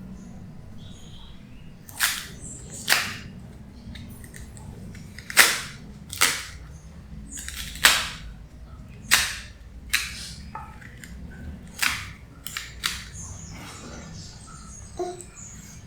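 A series of about a dozen sharp knocks and clacks at uneven intervals of roughly a second, each ringing briefly, from kitchen work.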